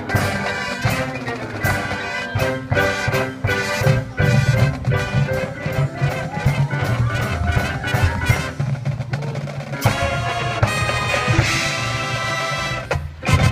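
High school marching band playing: brass over drumline and marimbas, with frequent sharp accented hits. It builds into a held full-band chord in the last few seconds.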